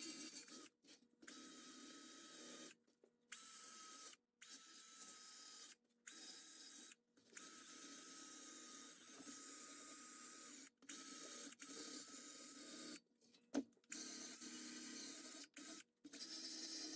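Faint, steady scraping of cleaning work on the seat-back parts, which stops and restarts abruptly many times.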